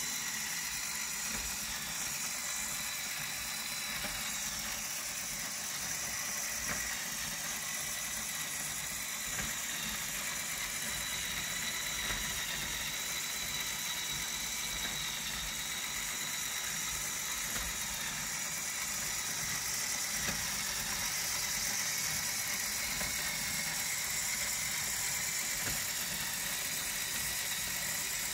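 Motor-driven LEGO Technic plastic gear trains and linkages running steadily, giving a continuous whir with a high-pitched whine.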